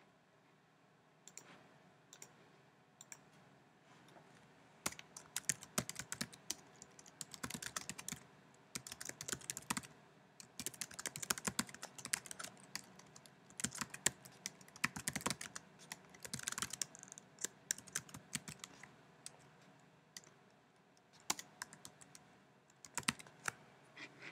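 Typing on a computer keyboard: runs of quick key clicks with short pauses between them, starting about five seconds in.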